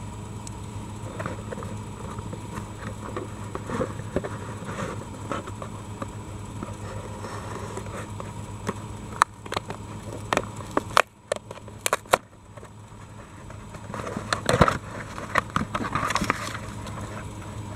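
Hands handling a mailed package for unboxing: rustling and scraping, with a run of sharp clicks and taps a little past the middle and a louder knock and rustling near the end, over a steady electrical hum.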